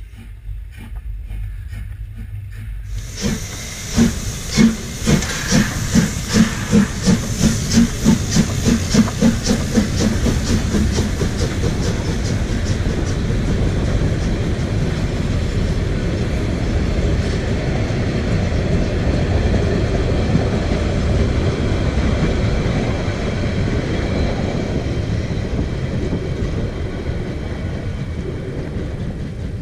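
Narrow-gauge steam locomotive starting away with a hiss of steam. From about three seconds in, loud exhaust chuffs come at first about a second and a half apart and quicken steadily, then blend into a continuous rumble as the coaches roll past and the train draws away.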